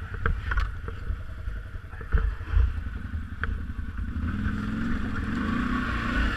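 BRP off-road vehicle engine running under load, revving up from about four seconds in as the driver tries to back out of a difficult spot. A few sharp knocks and clatter from the vehicle come in the first three seconds.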